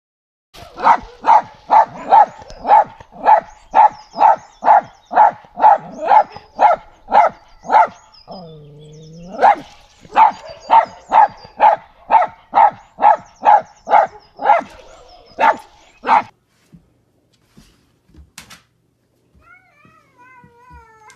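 A small dog barking rapidly and over and over, about two barks a second for some fifteen seconds, broken once in the middle by a lower, drawn-out call. Near the end, a faint cat meow.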